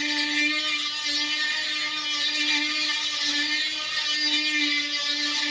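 Electric grinder running steadily with a constant whine and a hiss, grinding metal parts flat.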